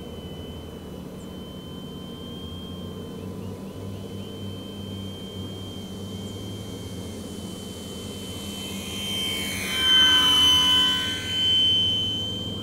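Electric brushless motor and propeller of an E-flite 1.2 m P-51D Mustang foam RC warbird, running on a 3S battery: a steady high whine that swells as the plane makes a low, close pass about ten seconds in, then fades.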